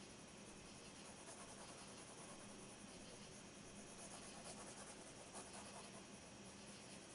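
Faint scratching of a soft 4B graphite pencil shading on sketch-pad paper, in irregular strokes, over a faint steady low hum.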